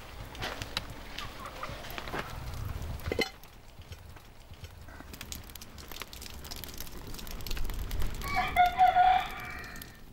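A rooster crows once near the end, one long call. Earlier there are scattered clicks and a sharp knock about three seconds in.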